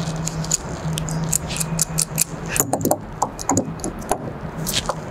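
Light clicks, taps and small scrapes of gloved hands handling a plastic pipe fitting, a Teflon-taped poly elbow adapter, as it is set into a tank's threaded port. A low steady hum sounds underneath.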